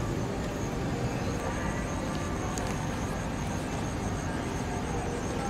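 Steady outdoor background rumble, even and unbroken, with a faint steady high-pitched whine above it.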